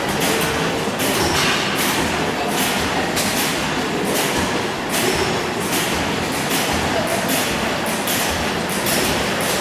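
Antique stationary gas engines running together in a hall, their exhausts firing in uneven, overlapping pops about two a second over a steady mechanical clatter.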